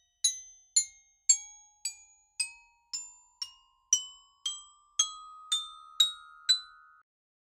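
Short end-card jingle: a simple melody of single bright, bell-like mallet-percussion notes, about two a second, each ringing briefly. The notes stop shortly before the end.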